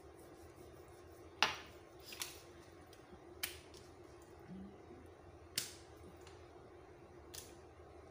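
A kitchen knife slicing raw chicken breast into thin fillets, the blade tapping sharply on a plastic cutting board about five times, loudest about a second and a half in. A steady low hum runs underneath.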